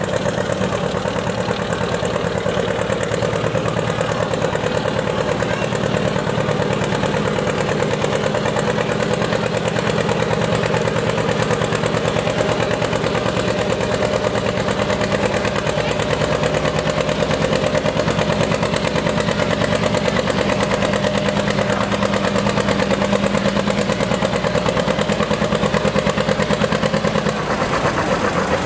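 John Deere two-cylinder tractor engine running steadily under load as the tractor drags a sled of concrete blocks.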